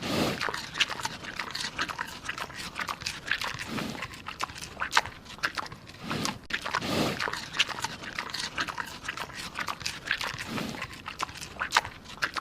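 Sounds of an animal: many short, sharp clicks throughout, with a few longer, lower sounds spread through the clip.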